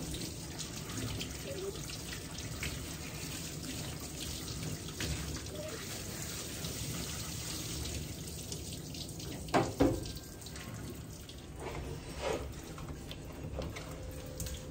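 Water from a hand-held hose sprayer running over a wet dog's coat into a stainless steel grooming tub, a steady spray with dripping. Two brief louder sounds come close together a little past the middle.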